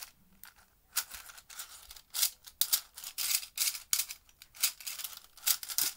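Small plastic pieces clicking and clattering as they are handled, in quick irregular bursts starting about a second in.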